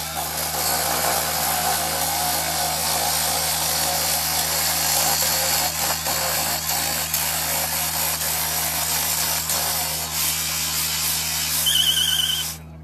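Portable abrasive rail saw running steadily, its cutting wheel grinding through a steel rail with a dense, harsh hiss over a low machine hum. Near the end a brief wavering high whine rises over it, then the sound cuts off suddenly.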